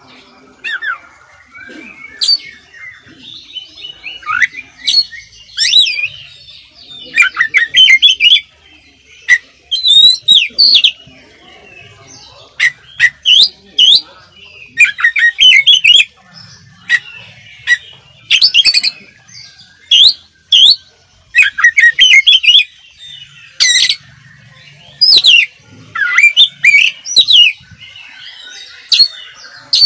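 Oriental magpie-robin in full song: a loud, varied run of sharp whistles, quick rising and falling notes and clicking notes, in phrases a second or two long with short pauses between them. The song is packed with filler phrases (isian).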